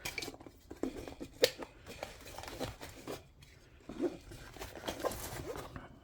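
Scattered handling noises: light knocks, clicks and rustling as items are picked up and moved about, with one sharp click about a second and a half in.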